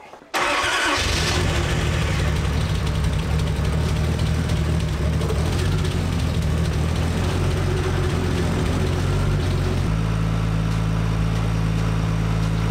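Toyota 1JZ turbocharged straight-six starting: it catches abruptly and runs with a wavering, unsettled note, then settles into a steady idle about ten seconds in.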